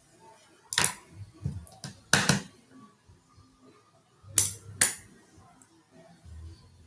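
Small hard makeup items being handled: a few sharp clicks and knocks, one group about a second in and a second pair just past four seconds.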